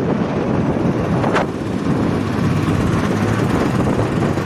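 Motorcycle engine running steadily while riding along the road.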